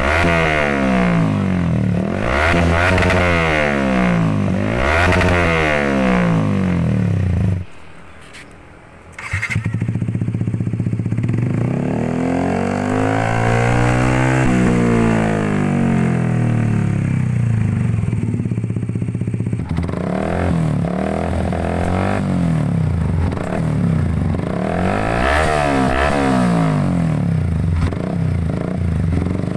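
Motorcycle engines revving through F2Racing CL.LONG aftermarket slip-on silencers, on manual and automatic bikes: several quick throttle blips, one long rev up and back down about halfway through, then more blips near the end. The exhaust note is a deep, round bass, not raspy.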